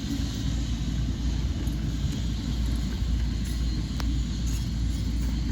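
Diesel engine of heavy earthmoving machinery running with a steady low rumble, with a single sharp click about four seconds in.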